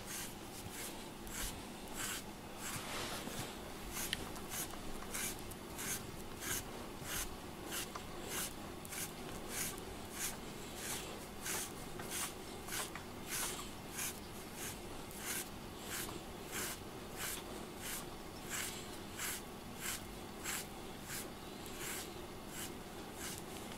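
FURminator deshedding tool raked through a cat's coat in steady, even strokes, a little under two a second, each a short scratchy rasp of the metal comb edge through the fur as it pulls out loose undercoat.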